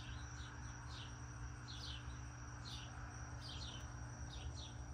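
Faint outdoor background of small birds chirping: short, high chirps that drop in pitch, about one or two a second at irregular intervals, over a steady faint high whine and a low hum.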